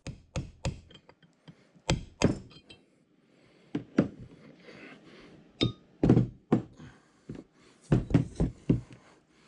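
Brass hammer tapping a brass punch to drive a bevel gear out of the cast housing of a Dorian right-angle milling attachment: a dozen or more sharp, irregularly spaced knocks, with a brief metallic ring about halfway through.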